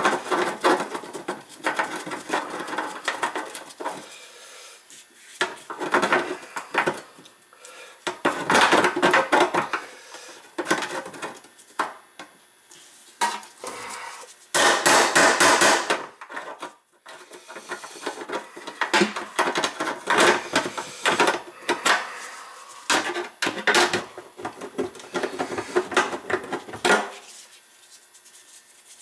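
Steel pliers gripping and bending the ragged edge of a faucet hole in a stainless steel sink deck: metal clanking, knocking and scraping in repeated bursts, loudest about halfway through. The bent sink metal is being worked flat.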